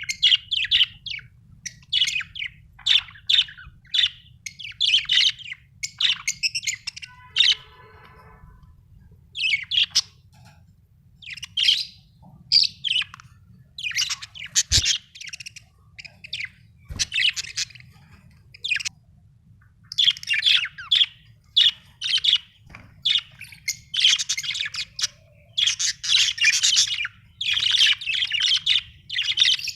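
Budgerigar chirping in quick, high bursts with short pauses between them.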